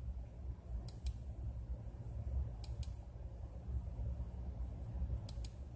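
Three pairs of quick computer-mouse clicks, each a press and release about a fifth of a second apart, over a steady low hum.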